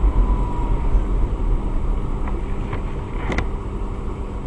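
Steady low rumble of a car driving on a snowy road, heard from inside the cabin, with a few sharp clicks.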